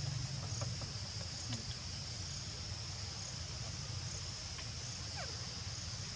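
Steady high-pitched chorus of insects, crickets or cicadas, over a low steady hum, with a faint falling squeak about five seconds in.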